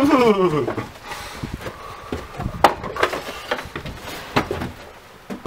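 Footsteps going down wooden basement stairs: a loose series of separate sharp knocks, after a short spoken sound at the start.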